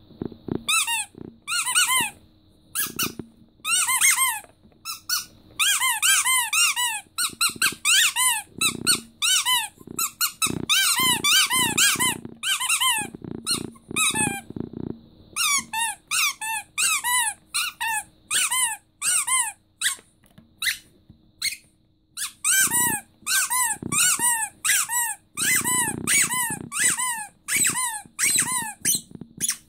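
Rubber squeaky dog toy, a green starfish, squeezed over and over: quick runs of short squeaks, each rising and falling in pitch, with brief pauses between runs.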